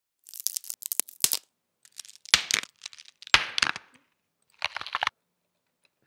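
Crackle sound-effect samples previewed one after another, starting with a crackling-plastic sample: four short bursts of dense crackling, each a second or less, with silent gaps between.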